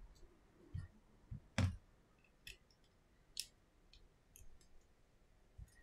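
Scattered small clicks and taps of smartphone parts and metal tweezers being handled during disassembly, with one louder knock about a second and a half in.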